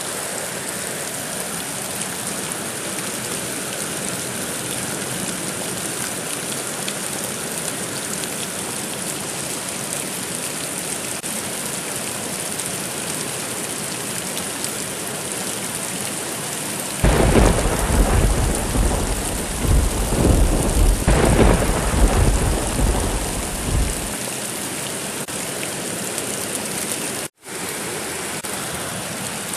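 Steady heavy rain, with a long rumble of thunder swelling in about halfway through and rolling on for roughly seven seconds. The sound cuts out for an instant near the end.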